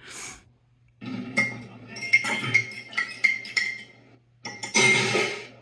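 Metal fork clinking against a ceramic coffee mug as coffee is stirred, a run of repeated ringing clinks, heard as playback from a screen. Near the end comes a short, louder rushing noise.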